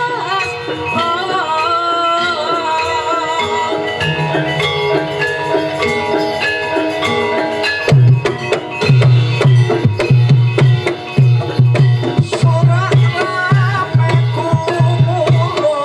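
Javanese gamelan music for a jaranan horse dance: ringing metallophone notes under a wavering held melody. About halfway through, the kendang drum comes in strongly with deep, regular strokes, roughly two a second.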